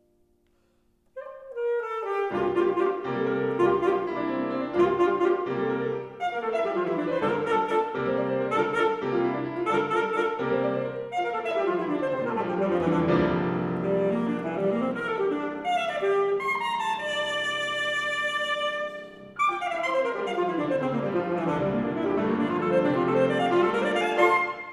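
Alto saxophone and piano playing a fast, busy passage of a contemporary sonata, entering after about a second of near silence, with a brief break about three quarters of the way through.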